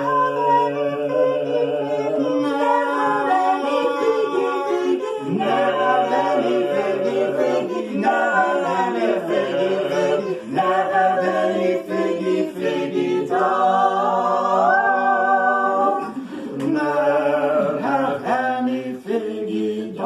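Small mixed vocal ensemble of soprano, altos, tenor and bass singing unaccompanied in close harmony, holding long chords that change together.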